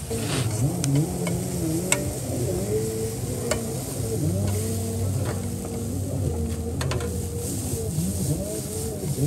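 Spice masala sizzling in a non-stick frying pan on a portable gas stove as it is stirred, with scattered sharp clicks of the utensil against the pan. A low wavering tone runs underneath.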